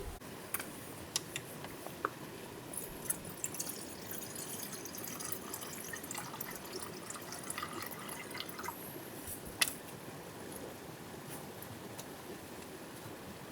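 Water trickling and dripping, with scattered small sharp clicks and a crackly high-pitched patch in the middle; one louder click near the end.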